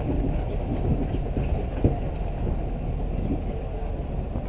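Low, gusty rumble of wind buffeting the camera's microphone.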